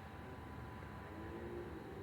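Quiet background with a faint steady hum.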